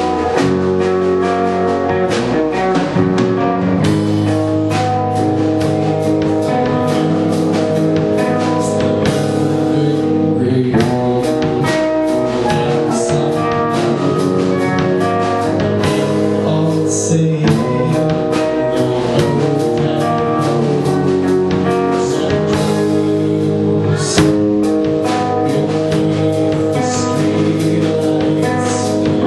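Live rock band playing a slow, sad song: electric guitars, bass and a drum kit, with a vocalist singing over them.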